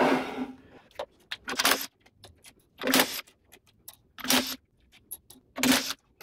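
Cordless power driver with a socket spinning the nuts off a bolted steel press jig in several short bursts about a second apart, with small metal clinks between.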